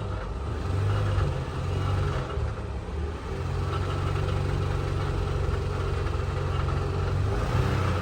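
Honda Odyssey 3.5-litre V6 engine running, with a faint clack, clack, clack deep in the background. The clack is not a rod knock: it comes from the catalytic converter, whose broken internal honeycomb rattles.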